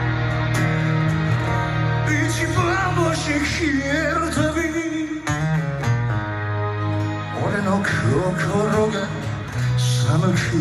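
Music with guitar: a wavering lead melody line over sustained low notes, with no sung words.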